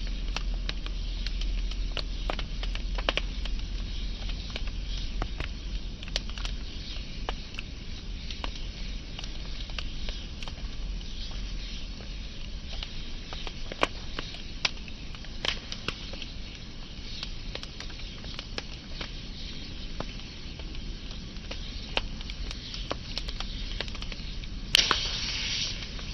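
Wood fire burning with a steady hiss and many sharp crackles and pops, one louder pop with a short hissing burst near the end.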